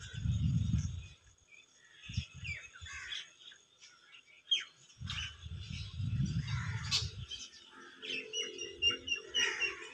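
Birds chirping and calling in many short notes, over low rumbles on the microphone at the start and again about five seconds in.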